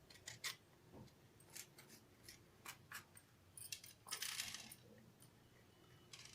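Faint scattered clicks and soft crackles of fresh green chillies being split open and deseeded by hand, with a slightly louder rustle about four seconds in.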